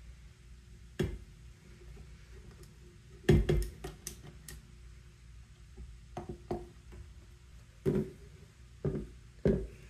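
A few separate knocks and scrapes of a spatula against a stand mixer's wire whisk and stainless steel bowl as the whisk is scraped clean and the bowl is lifted out. The loudest clatter comes a little over three seconds in.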